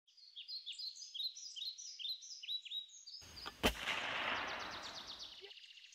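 A bird sings repeated short, high chirping notes, about two a second. About three and a half seconds in, a single sharp gunshot cracks out, followed by a rumble that fades over about two seconds.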